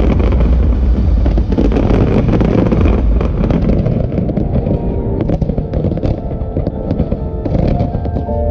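Aerial fireworks display: a dense run of shell bursts and crackling over a deep rumble, with music playing alongside. Sustained musical notes come through more clearly in the second half as the rumble eases.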